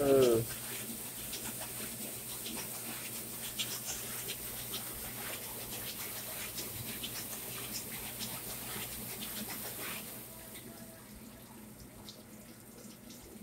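Commercial dishwasher running: steady hiss of spraying water over a low pump hum, with scattered drips and splashes, the spray dropping off about ten seconds in. A brief falling whine, the loudest sound, comes right at the start.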